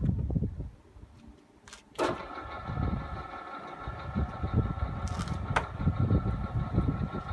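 WMW pillar drill switched on with a click about two seconds in, its electric motor and gear drive then running steadily with a whine of several fixed tones over a low rumble.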